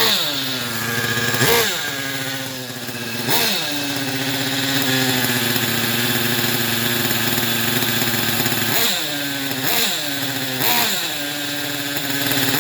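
Small two-stroke nitro glow engine of a Thunder Tiger EK4 RC car, running on its first start after restoration. It is blipped several times, each rev rising sharply and falling back to idle. It holds a steady idle in the middle, then gets three quick blips near the end.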